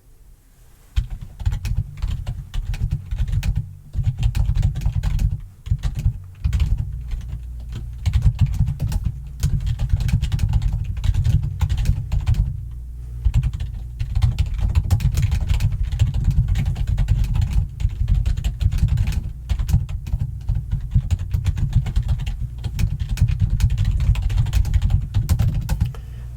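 Fast, loud typing on a computer keyboard: a dense run of keystrokes with heavy low thuds, starting about a second in and pausing briefly a few times.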